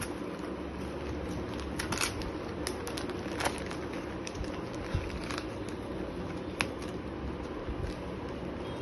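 A parcel being opened and its packaging handled: scattered rustles and short clicks over a steady low background hum.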